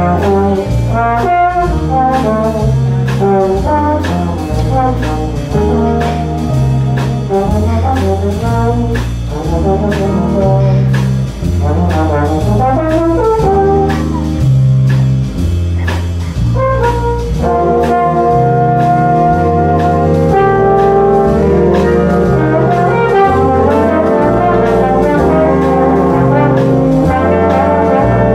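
Jazz big band playing an improvised soundpainting piece on the conductor's hand signs: saxophones, trumpets and trombones over a repeating bass figure and drums. About halfway through, the horns settle into long held chords.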